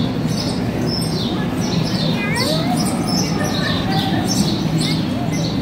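Small birds chirping: many short, high, falling chirps repeating over a steady background murmur of people.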